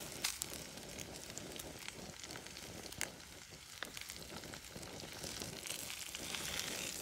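Food sizzling in a frying pan: a steady hiss with a few sharp pops.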